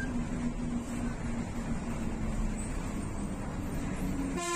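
Bus engine running steadily with road noise, heard from inside the bus while it drives, a low hum holding under the noise. A horn sounds briefly right at the end.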